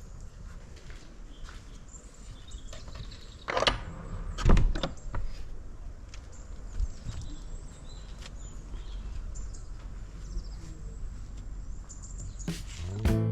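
Birds chirping faintly in the background, with a few sharp knocks or clunks about three and a half to four and a half seconds in. Music starts near the end.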